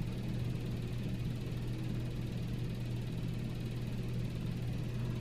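Steady low hum with a faint even hiss: room background noise, with no other sound standing out.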